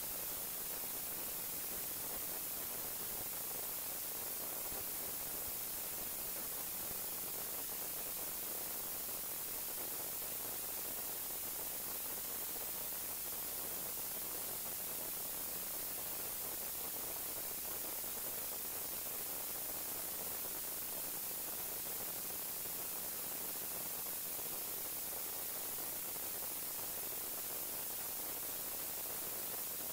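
Steady static hiss, unchanging throughout, with no distinct sound standing out.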